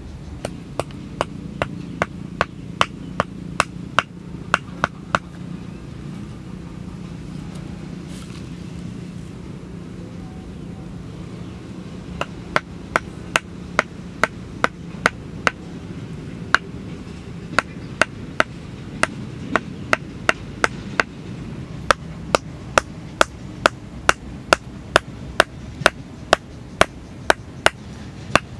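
Wooden stakes being driven into the ground with a wooden club: sharp wood-on-wood knocks, about two a second, in runs with a pause of about seven seconds after the first run. A steady low hum lies underneath.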